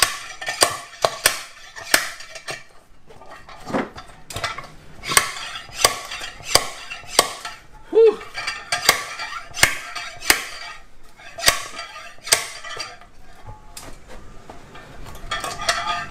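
Neiko slide hammer puller's weight repeatedly striking its stop, a series of sharp metallic clanks about one a second with short pauses, jerking a blind-hole bearing out of a transfer case housing.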